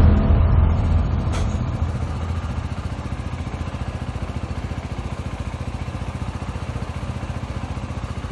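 KTM Duke 125's single-cylinder engine idling with an even, quick pulsing beat, easing down from a louder rev over the first couple of seconds.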